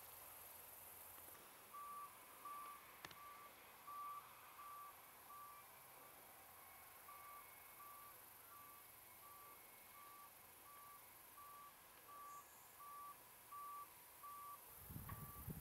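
Faint reversing alarm of a vehicle backing up, beeping evenly at one steady pitch, about three beeps every two seconds. A short low rumble near the end.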